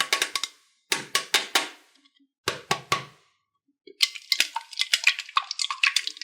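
Slime being pressed and folded by hand, its trapped air popping in sharp wet clicks: three short bursts of pops, then a denser run of crackling over the last two seconds or so.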